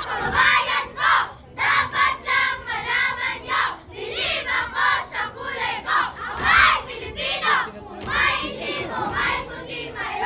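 A group of children's voices together in unison, delivered in loud phrases with brief breaks between them.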